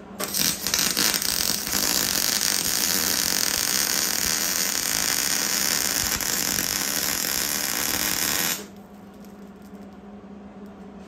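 Stick-welding arc on galvanized steel Unistrut: the arc is struck with a few short sputters, then burns steadily for about eight seconds and stops suddenly.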